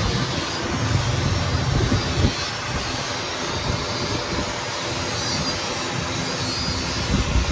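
Steady rushing roar of air being blown into a coal forge fire by an electric blower, with a constant low motor hum beneath it.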